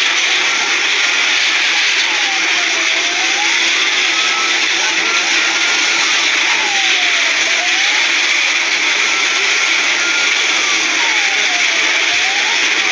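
Fire engine siren wailing, its pitch slowly falling and rising again about every four and a half seconds, over a loud steady rushing noise.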